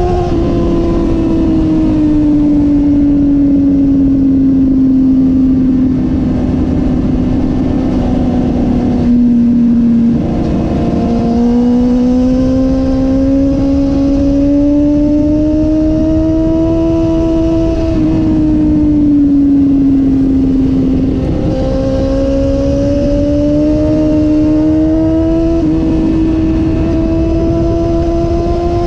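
2016 BMW S1000RR's inline-four engine through its stock exhaust, heard from the rider's seat while riding, its pitch slowly falling and rising several times as the throttle changes, over a low wind rush.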